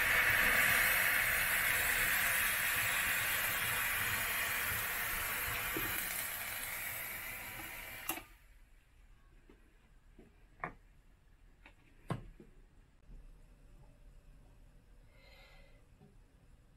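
A pot of goat milk boiling on a gas stove, with a steady loud hiss that fades slowly and cuts off suddenly about eight seconds in. After that come a few light clicks and knocks of kitchenware.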